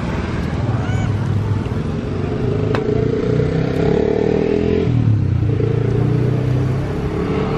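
Motor vehicle engines running steadily, their pitched hum swelling twice between about two and seven seconds in.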